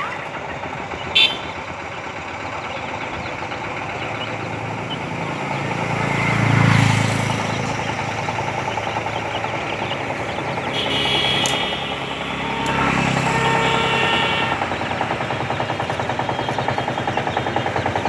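Motor vehicle engine running, growing louder to a peak about six to seven seconds in as it passes, with a fast, even throb near the end. A sharp click sounds about a second in.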